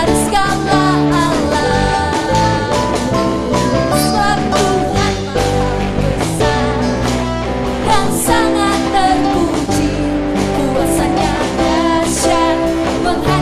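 Live church worship band playing a lively praise song, with guitar and voices singing.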